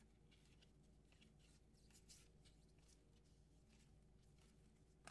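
Near silence with faint, scattered rustling of trading cards being handled and slid against each other, and a light tap right at the end.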